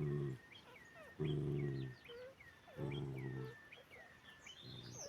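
Mother dog growling a warning at another dog to keep it away from her newborn puppies: low, drawn-out growls repeated about every one and a half seconds, four in all, the last one weaker.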